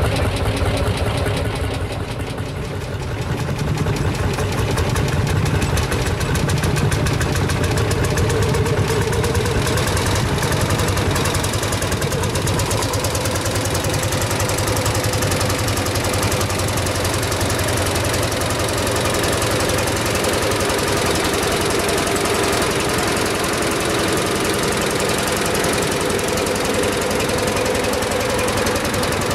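Single-cylinder two-stroke hot-bulb semi-diesel tractor engine running with a rapid, even knock. It dips briefly about two seconds in, then picks up and runs steadily.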